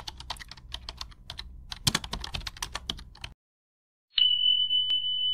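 Rapid computer-keyboard typing clicks for about three seconds, then a brief silence and a single steady high-pitched beep that starts near the end.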